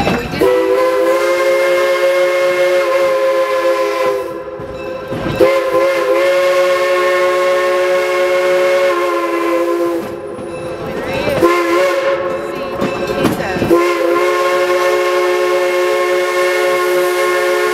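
A locomotive's multi-note chime signal sounded as four blasts, long, long, short and long: the standard warning for a road grade crossing. The running train's rumble shows through in the gaps.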